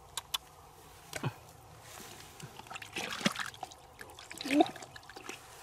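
Wet mud and water squelching and dribbling as a hand and a knife dig into a muddy underground fish hole, with scattered scrapes and clicks. A short, sharp rising squelch near the end is the loudest sound.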